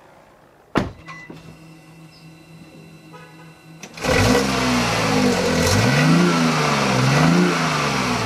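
BMW i8's 1.5-litre turbocharged three-cylinder petrol engine being revved, part of its note possibly played through speakers. A click comes about a second in, then a quieter steady hum, and from about four seconds in the revs rise and fall about four times.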